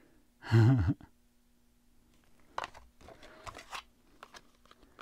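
A few light clicks and taps of a cardboard blister card being handled and laid down on a table, after a brief murmur of a voice.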